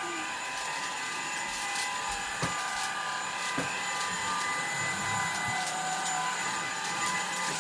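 Vacuum cleaner running steadily, a constant motor whine over a rushing noise, with a couple of light knocks.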